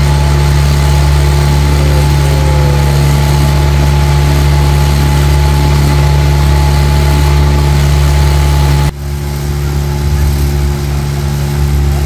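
Motorboat engine running steadily with a low hum. About nine seconds in the sound changes abruptly and drops slightly in level.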